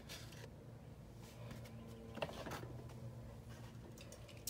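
Faint handling noise: soft rustles and a couple of light clicks about halfway through as a carded Hot Wheels car in its plastic blister pack is moved and set down.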